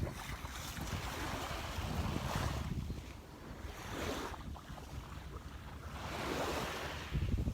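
Small waves washing onto the shore, surging and fading every couple of seconds, with wind buffeting the microphone.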